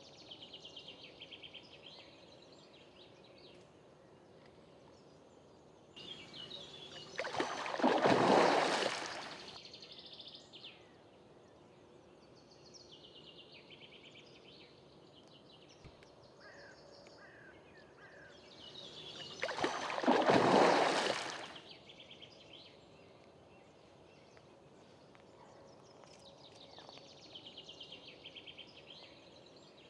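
Water splashing twice, some twelve seconds apart, each bout swelling and dying away over about two seconds: a hooked fish thrashing at the surface close to the bank.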